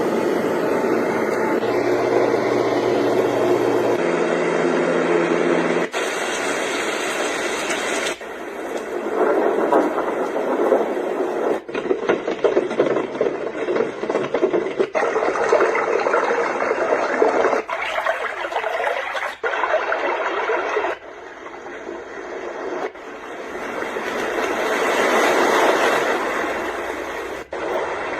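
A sleep sound machine playing through its speaker as it is stepped through its built-in soothing sounds: each is a steady rushing noise, some with a low hum, some swelling and fading like waves, cut off abruptly for the next every two to four seconds.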